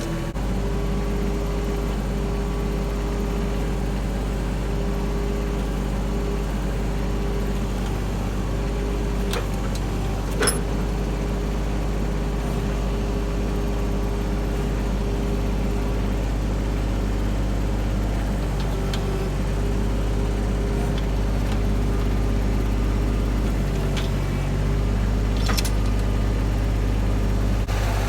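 An engine running steadily, with a sharp knock about ten seconds in and a fainter click near the end.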